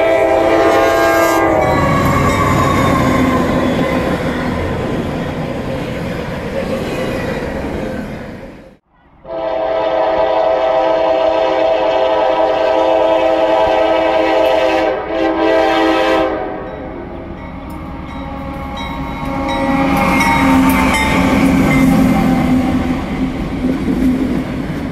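Freight locomotive air horn sounding a chord, over the rumble of a passing train. The sound cuts out abruptly about a third of the way in, then a second long horn blast holds for about seven seconds before giving way to train rumble and wheel noise.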